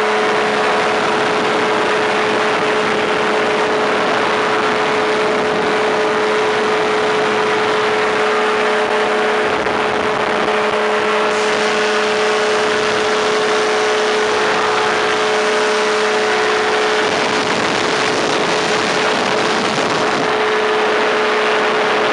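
Powered parachute's engine and propeller running steadily in flight, heard from on board: a constant, even drone with a strong steady hum over a dense hiss, with no change in pitch or level.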